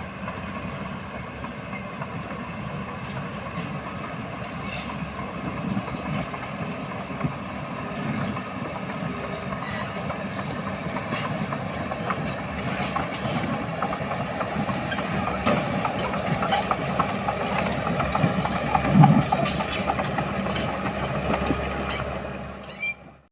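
Tracked earthmoving machinery working: a diesel engine running under load with a high-pitched squeal that comes and goes and occasional knocks, growing louder toward the end before cutting off.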